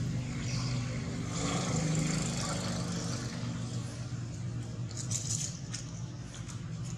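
Steady low hum of a running engine. About five seconds in, dry leaves rustle and crackle as a young macaque scampers over them.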